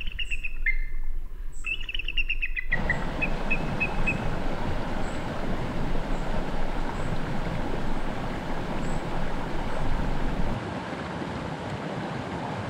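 A bald eagle's high, chattering call, a quick run of notes falling in pitch, for the first few seconds. It cuts off suddenly to the steady rushing of a shallow creek flowing over rocks.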